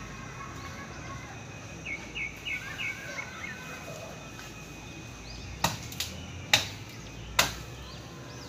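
Cassava leaf stalks snapping as they are picked off the plant by hand: four sharp snaps in the second half. Before them a bird chirps a quick run of about four short notes.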